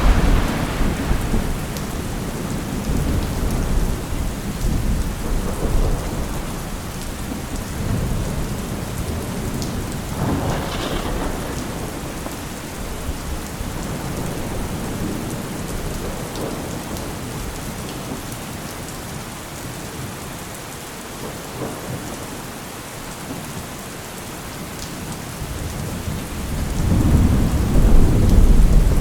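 Steady rain with rolling thunder: a loud deep rumble at the start, a sharper thunderclap about ten seconds in, quieter rain through the middle, and another rumble building near the end.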